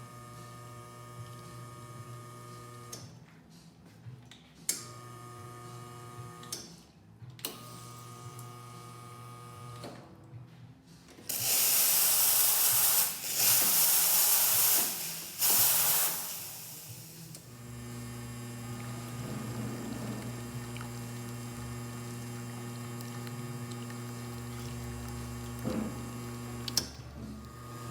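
La Marzocco GS3 espresso machine under test. Its motor-driven pump hums steadily and cuts out briefly a few times. About eleven seconds in, the steam wand is opened for a loud hiss of steam in three blasts lasting about six seconds, and then the pump hum carries on steadily.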